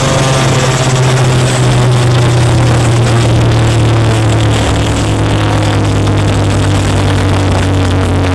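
Huge outdoor battle sound system playing a loud, sustained low bass drone that steps down in pitch about halfway through.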